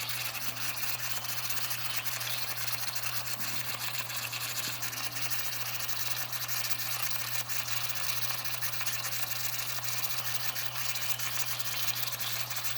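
Steady hiss of steam from an Empire B42 twin-boiler toy steam engine under pressure, with a low steady hum beneath it. The engine is fired up but still too tight to run.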